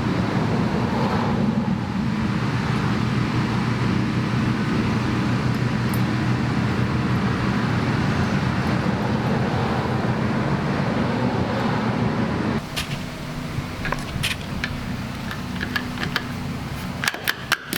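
An engine running steadily under a wash of noise; about twelve and a half seconds in the noise drops and the engine hum goes on more quietly. Several sharp clicks and knocks come near the end.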